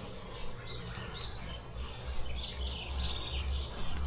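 Birds chirping, a few short calls close together, over a low steady rumble.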